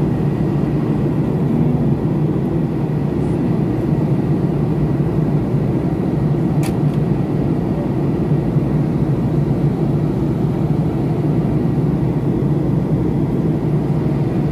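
Steady cabin noise of an airliner in cruise, heard at a window seat over the wing: an even rushing drone over a low, constant hum.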